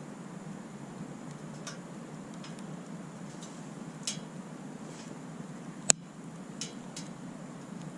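Wood campfire crackling, with scattered irregular pops and one sharp, much louder pop about six seconds in, over a steady low rushing noise.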